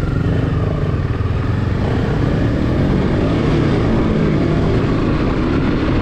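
Motorcycle engine running while riding, its pitch rising and falling a little.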